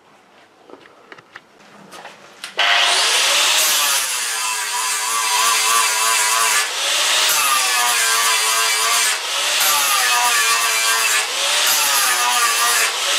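Metabo 1700-watt angle grinder with a no-name curved grit-40 flap disc, surface-grinding a weld seam flat on steel plate. The grinding starts abruptly about two and a half seconds in, after a few faint clicks. It runs loud and steady, and the motor's pitch dips and recovers about every two seconds as the disc is worked along the seam under load.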